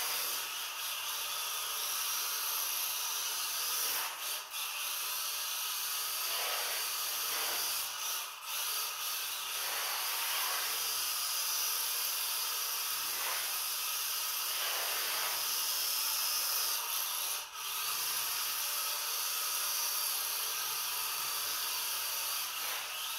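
XRX DPA rear-wheel-drive mini RC drift car sliding across a tiled floor: a steady hissing whir from its small electric motor and tyres scrubbing on the tile. The pitch rises and falls faintly, and the sound drops out briefly three times.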